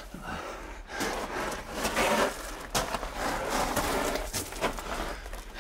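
Footsteps crunching on loose rock and gravel of a mine tunnel floor, irregular steps with scuffing in between.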